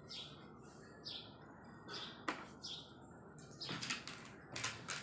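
Birds chirping in short high calls about once a second, with a few sharp clicks.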